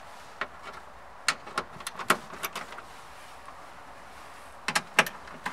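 Irregular small clicks and light knocks of a hand tool and screws against the plastic frame of a car's factory door speaker as its mounting screws are backed out. A louder pair of clicks comes near the end.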